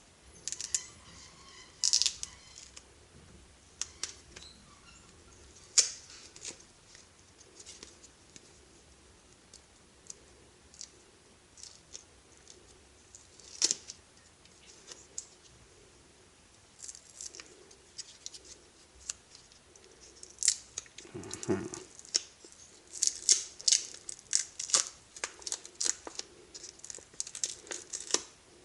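Scattered sharp clicks and snips of hands working on a power-tool battery pack, coming thicker in the last third, with a brief buzz a little past the middle.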